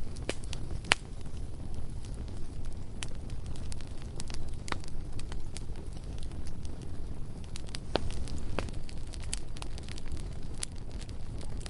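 Bonfire crackling: sharp pops and snaps at irregular intervals, the loudest about a second in, over a steady low rumble.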